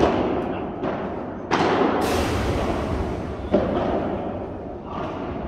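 Padel rally: the ball struck by padel rackets and bouncing, a series of sharp pops about a second apart, each echoing in a large indoor hall.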